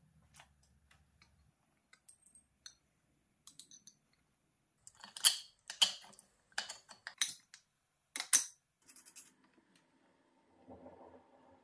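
Steel bolts, nuts and washers clicking and clinking against a steel jig fixture as they are fitted by hand, with a cluster of sharp metallic clicks in the middle. A faint scraping starts near the end.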